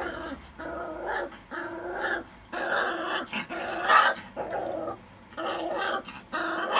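Four-week-old Caucasian Shepherd puppies growling and yelping in a quick string of short calls.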